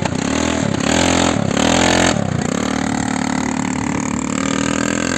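ATV (quad bike) engine revving up and down three times in quick succession, then running steadily.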